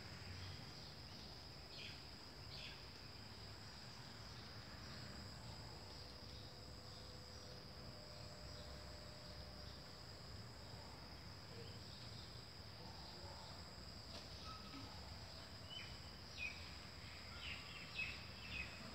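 Faint, steady high-pitched chorus of crickets or similar insects, with a few short chirps near the end.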